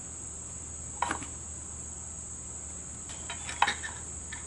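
Light clicks and taps as the starter cord and small metal parts are handled at the recoil starter housing of an Evinrude 3 hp outboard: one about a second in and a short cluster past three seconds. A steady high-pitched whine runs underneath.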